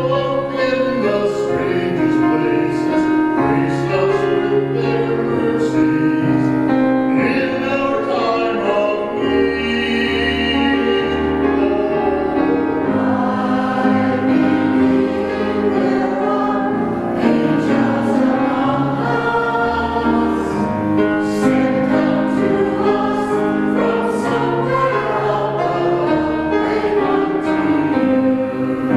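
A group of voices singing church music with instrumental accompaniment, steady throughout.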